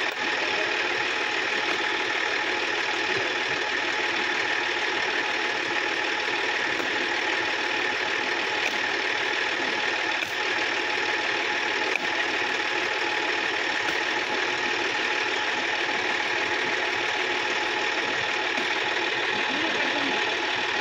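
Sonalika DI-50 RX tractor's diesel engine idling steadily.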